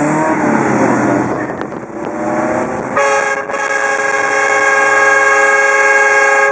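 Car-mounted train horn blown once, a chord of several steady tones that comes in suddenly about three seconds in and is held loud for about three and a half seconds. Vehicle noise with changing pitch comes before it.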